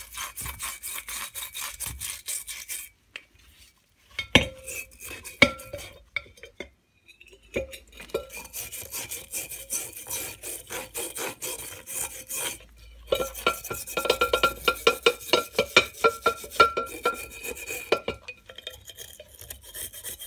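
A brush scrubbing a cast rotavator housing in a bowl of paraffin: fast, raspy back-and-forth strokes in bursts, with brief pauses. The scrubbing is busiest and loudest in the later part.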